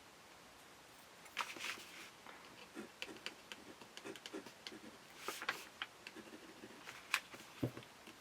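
Faint handling sounds of a pen and its packaging: scattered small clicks, taps and soft rustles, with a couple of sharper clicks near the end.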